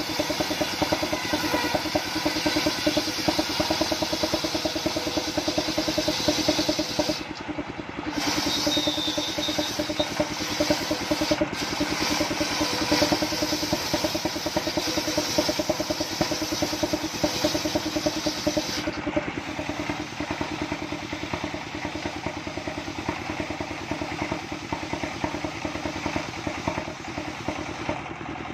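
Portable circular sawmill: its stationary engine runs steadily with a fast, even pulse while the large blade rips a coconut trunk into beams. The hissing of the cut drops away about two-thirds through, leaving the engine and the free-spinning blade.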